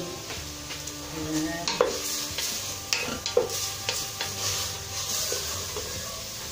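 Ground pork frying with a steady sizzle in a metal pot while a wooden spoon stirs and scrapes it. A few sharper knocks of the spoon against the pot stand out, the loudest a little past the middle.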